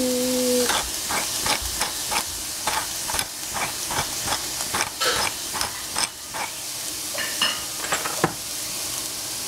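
Pork and bell pepper strips sizzling in a frying pan, with a run of irregular clicks and crackles from a pepper grinder being twisted over the pan. The clicking stops about a second before the end.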